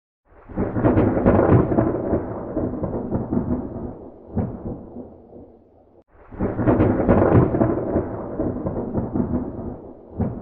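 Thunder sound effect: two rolling rumbles, each breaking out suddenly and fading away over about five seconds.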